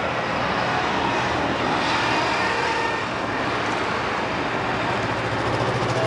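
Steady road traffic noise from passing vehicles, with a low engine throb growing louder near the end.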